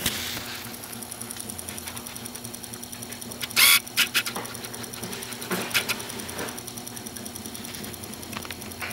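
Mavilor DC servo motor with tachometer running steadily under power on the bench, an even hum with a fine rapid ripple, as in a run test after repair. A brief, louder noisy burst comes about three and a half seconds in, followed by a few short clicks.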